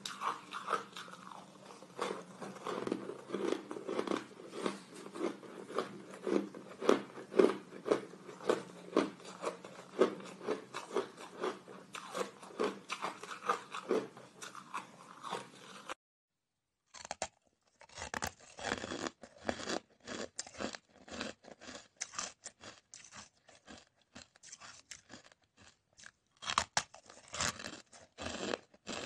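Chunks of hard, crunchy ice being bitten and chewed close to the microphone: a dense run of sharp crunches. The crunching stops for about a second past the middle, then picks up again.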